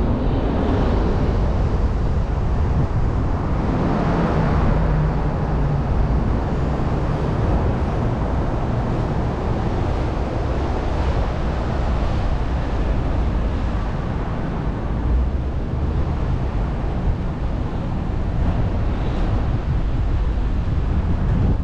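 Steady rumble of a car driving at city speed: tyre and engine noise with some wind on the microphone.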